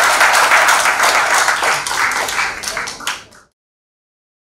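Audience applauding, the claps growing sparser and then cut off abruptly about three and a half seconds in.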